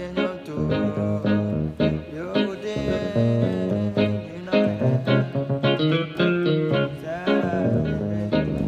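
Bass guitar playing a walking praise bassline, a continuous run of plucked notes with passing chords, over accompanying music.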